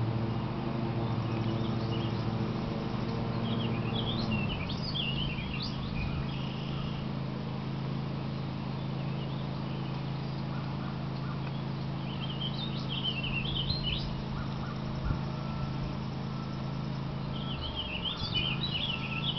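A songbird singing in short bursts of quick, warbling chirps, three times: a few seconds in, around the middle, and near the end, over a steady low hum.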